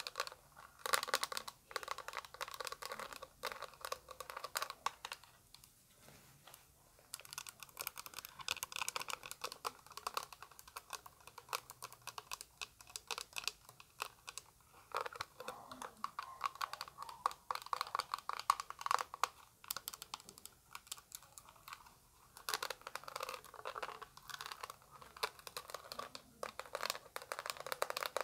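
Fast tapping of long fingernails on a clear plastic eyeshadow palette case: a dense run of quick, light clicks, with short pauses now and then.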